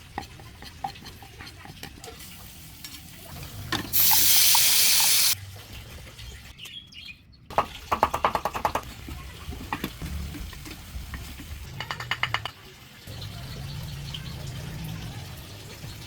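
Kitchen sounds during cooking: water running hard for about a second and a half, about four seconds in, with a couple of short runs of rapid rattling clicks later on.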